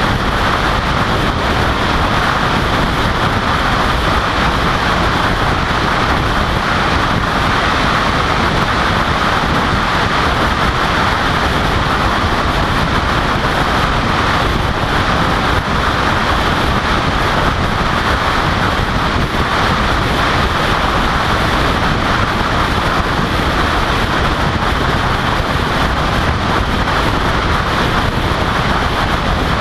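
Car driving at highway speed: a steady rush of wind and tyre noise, with wind blowing across a microphone mounted on the outside of the car.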